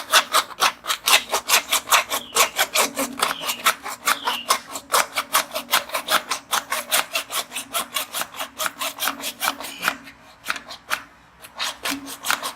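Hand file rasping back and forth across the end of a PVC sewer pipe in quick, even strokes, about four a second, with a brief pause about ten seconds in.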